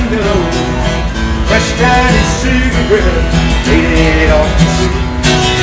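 Acoustic guitar played live, strummed chords with a moving melody line, over a steady low rumble from the moving train car.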